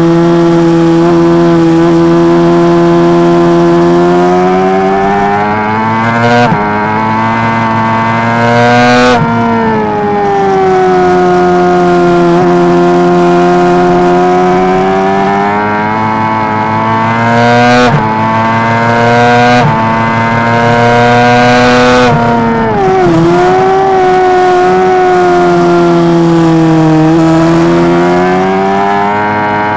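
Honda CBR600RR's 600 cc inline-four engine running hard at high revs under a racing rider, heard close up on the bike. The pitch climbs steadily, then breaks off abruptly several times as gears change, and falls away as the bike slows for corners.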